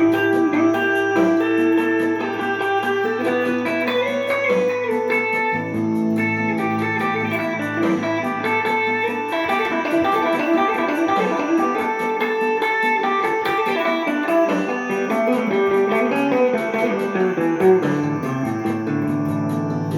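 Gibson ES-339 Custom semi-hollow electric guitar played in a jazzy improvisation with an Indian flavour: single-note melodic lines over a low sustained bass note, which drops out about halfway through, leaving the melody alone.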